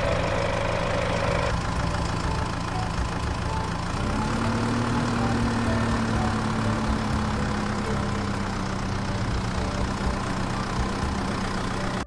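Engine running steadily at idle, its pitch stepping up slightly about four seconds in, then cutting off suddenly at the end.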